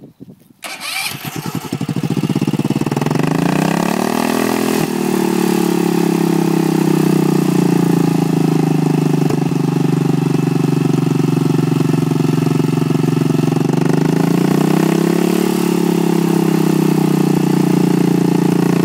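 Racing lawn mower engine starting and revving up, then held at high revs. The revs dip briefly and climb again.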